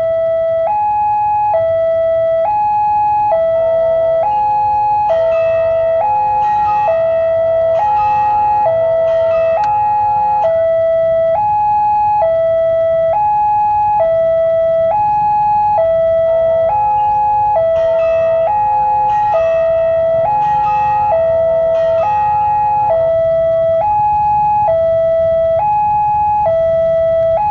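Railway level-crossing alarm sounding a loud, steady two-tone electronic warning, high and low notes alternating about once a second: the signal that a train is coming and the crossing barrier is closing. Twice, for several seconds each, extra tones and rattling noises join in over it.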